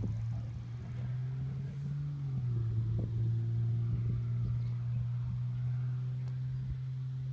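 An engine running steadily, with a low hum that drops slightly in pitch about two seconds in.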